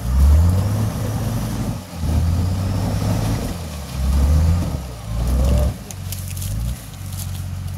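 Nissan Patrol's engine revving under load in about four surges, rising and dropping, as the SUV works itself out of the mud.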